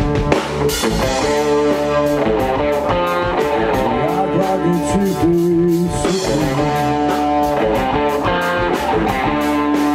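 Live electric blues band playing: electric guitars, bass guitar and drums, with a harmonica played into a cupped microphone. The music keeps a steady, even loudness throughout.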